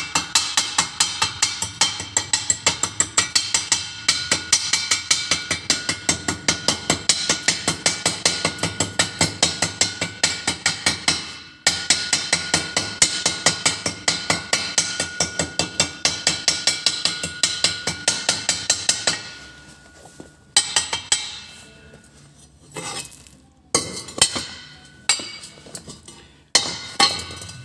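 Rapid, evenly spaced metallic tapping of a hammer on welded metal, about five strikes a second, with a brief stop about 11 seconds in. After about 19 seconds it gives way to scattered single knocks.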